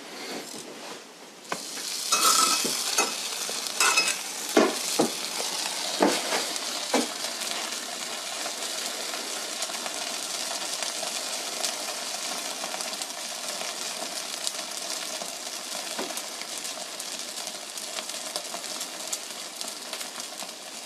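Wood fire burning in a brick stove-fireplace's bread-oven chamber: a steady hiss with sharp scattered crackles. A few louder knocks and clatters come in the first several seconds.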